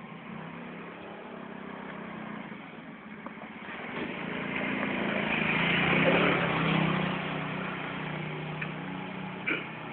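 A motor vehicle's engine passing by, growing louder to a peak about six seconds in and then fading. A short sharp knock comes near the end.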